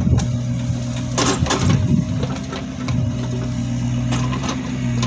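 An engine running steadily with a low, even hum. Short scraping clicks come through about a second in and again about four seconds in, as a knife cuts the peel off a papaya.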